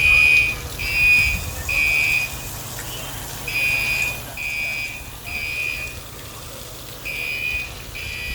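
Fire alarm sounding in the temporal-three evacuation pattern: three high, even beeps of about half a second each, a pause of about a second, then three more, repeating.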